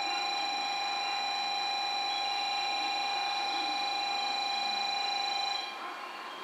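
Steady high-pitched brake squeal from the slowly moving 381 series electric train, several tones at once, cutting off suddenly about five and a half seconds in.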